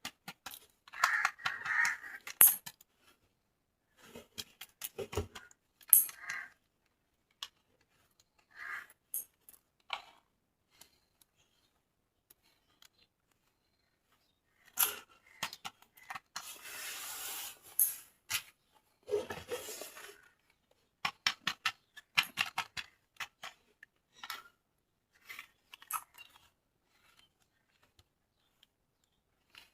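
Hands unboxing plastic toys: scattered clicks and taps of plastic parts and packaging, with a longer rustle of packaging a little past the middle.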